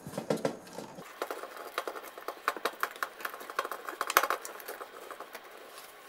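Copper ground wires and a wire nut being pushed and folded by hand into a wall switch box: irregular scraping and light clicks, dying away in the last second.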